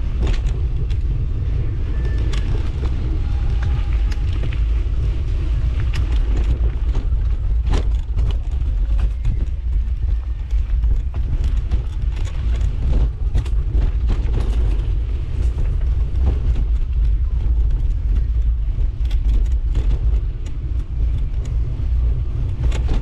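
Mountain bike ridden over a rough trail: steady low wind rumble on the microphone, with frequent clicks and rattles from the bike jolting over bumps.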